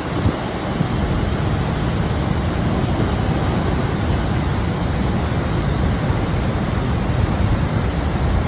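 Steady, even rush of falling water from Niagara Falls' Horseshoe Falls, with wind rumbling on the microphone.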